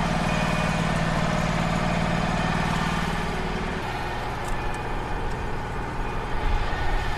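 Wood-Mizer LT35 HD sawmill's engine running steadily, with a strong low hum that drops away about four seconds in, as a hydraulic log-handling function is worked and then released.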